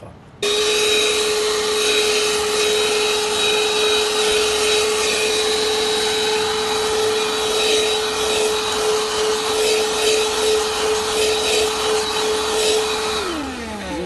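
Handheld cigarette-lighter-powered car vacuum cleaner switched on about half a second in, its motor running with a steady whine and rushing air as the nozzle sucks dirt off a ribbed car mat. Near the end it is switched off and the motor winds down, its pitch falling.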